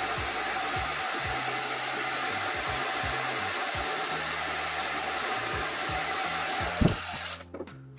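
Hand-held hair dryer blowing steadily, a strong rush of air with a steady motor whine in it, then cutting off near the end just after a click. It is heating the adhesive under a mouse's feet to loosen them.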